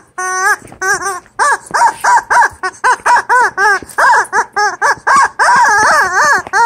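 Squeaky toy chicken squeezed over and over, giving short pitched squeaks about three a second, some rising and falling in pitch.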